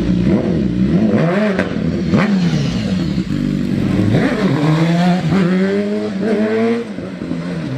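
Motorcycle engine being revved in a series of throttle blips, its pitch rising and falling several times, then dropping back toward idle near the end.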